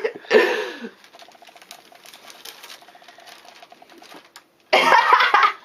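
A bag rustling and crinkling as a kitten plays inside it: faint scattered crackles for a few seconds, then a loud burst of crinkling near the end.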